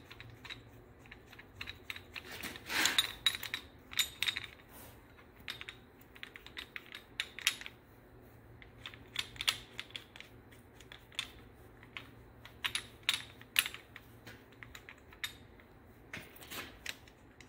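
Irregular light metallic clicks and taps as steel pushrods and rocker arms on a Mopar V8's shaft-mounted rocker assembly are handled and knocked against each other. The clicks come in small clusters at an uneven pace.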